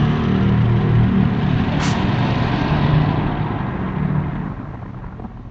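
A motor vehicle's engine running close by with a steady low hum, then fading away over the last couple of seconds as it moves off. A brief sharp high sound cuts in about two seconds in.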